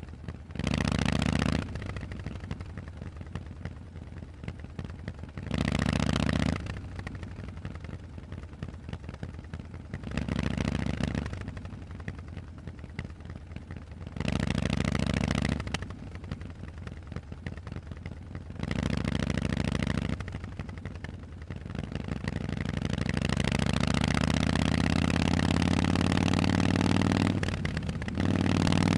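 Harley-Davidson Forty-Eight's air-cooled 1200 cc V-twin through a Vance & Hines exhaust, idling with five short throttle blips about every four and a half seconds. About two-thirds of the way in it accelerates away with rising pitch, dips briefly near the end, then pulls again.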